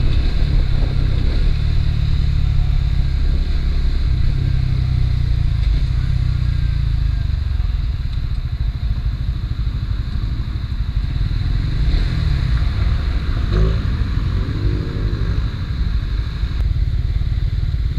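Suzuki GSX-S150's single-cylinder engine through its stock exhaust while the bike is ridden. The note is strong for the first several seconds, then softens as the throttle is eased and the bike slows.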